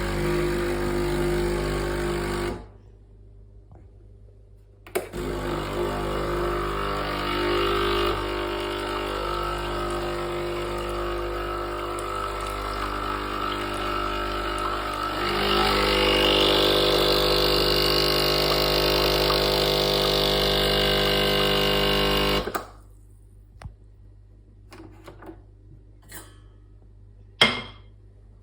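Sage Barista Express espresso machine buzzing loudly and steadily, the constant buzz that was traced to a faulty control board and solenoid. The buzz cuts out briefly a couple of seconds in, comes back, turns louder and brighter partway through, then stops, followed by a few light clicks and one sharp knock.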